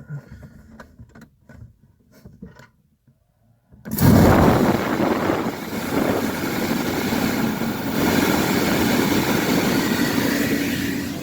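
A few light clicks, then about four seconds in the 2013 Mini Cooper Countryman's heater/AC blower fan comes on suddenly with a loud, steady rush of air. The fan runs smoothly with no whirring, now that the tissue jammed in it has been cleared out.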